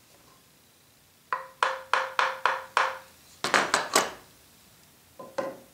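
A round wooden mallet tapping a planer knife held in a sharpening jig, nudging the knife's height. Six evenly spaced taps, each with a short metallic ring, then a quicker cluster of about four taps and two lighter ones near the end.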